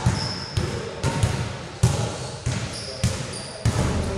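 Basketballs bouncing on a gym court floor in a steady dribble, a hard thud about every half second or so, each echoing in the hall.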